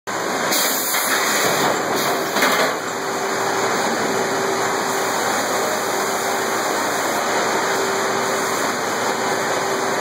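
Sawmill head rig and its machinery running: a steady, loud mechanical din with a faint steady hum, with a couple of brief louder surges in the first three seconds.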